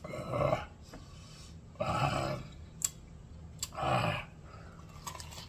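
A man breathing out hard three times through the mouth while eating very spicy sauce-covered fried chicken, the last breath with a low groan, a reaction to the heat of the sauce. A single sharp click comes between the second and third breaths.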